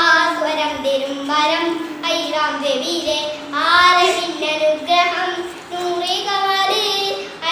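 A young boy singing solo into a handheld microphone, with long held notes that waver in pitch.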